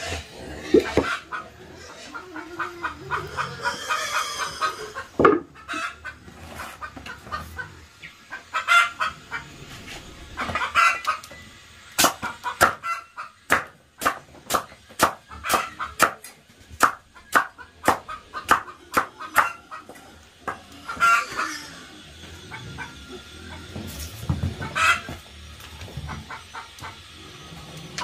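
A broad chopping knife cutting pumpkin on a woven bamboo tray: a run of sharp, even chops, about two to three a second, through the middle. Chickens cluck on and off.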